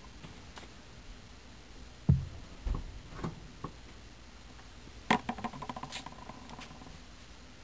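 Handling noise from small metal engine parts being worked by hand: a dull thump about two seconds in and a few light knocks, then a sharp metallic click about five seconds in, followed by a short run of clicks and light metallic rattling with a brief ring.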